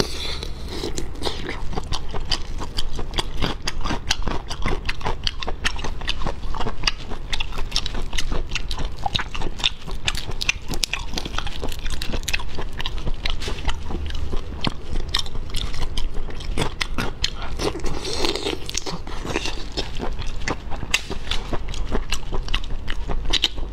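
Wet chewing, biting and shell crunching of raw-marinated black tiger prawns: a steady run of short crackly clicks.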